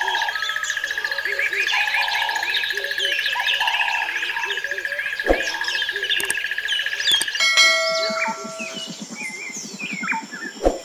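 A chorus of birds chirping and singing, many short overlapping calls over a steady high trill. About seven and a half seconds in, the trill stops and the chorus changes to longer held whistles and scattered chirps. There is a single sharp click about five seconds in.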